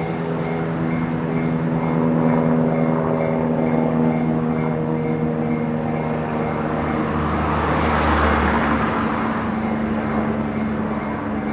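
Electric train running through a Japanese railway level crossing, with a steady humming drone and the crossing's warning bell ringing in an even repeating beat. The train noise swells with a deep rumble about eight seconds in.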